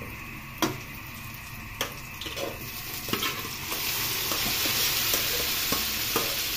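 Pre-cooked squid pieces tipped from a metal pot into a hot pan of sautéed onion and chili. A couple of metal clanks come first, then a frying sizzle swells about halfway through and holds.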